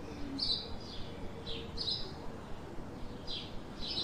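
A bird chirping repeatedly, short high chirps falling in pitch, about one every half second to a second.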